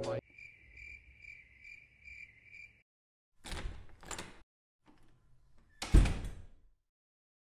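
Crickets chirping in an even pulse, about two and a half chirps a second. Then two short noises, and a door opening with a loud thud about six seconds in.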